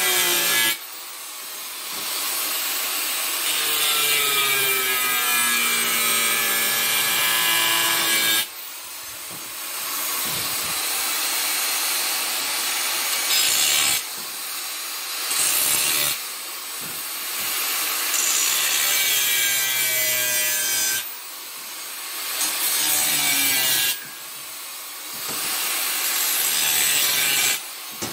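Angle grinder with a cutting disc slicing through steel plate, in repeated loud passes of a few seconds each with short quieter lulls between as the disc is eased off. The motor's pitch wavers as the disc bites into the metal.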